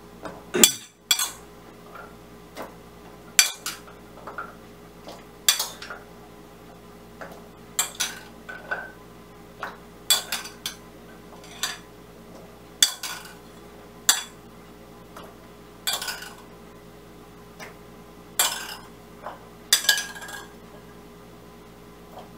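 A cooking utensil clinking and knocking against a frying pan while rice cakes are stirred into sauce, in sharp irregular taps every second or two.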